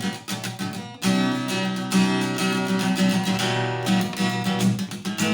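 Acoustic guitar strumming chords in a steady rhythm, the open strings ringing, with a brief break about a second in before the strumming picks up again.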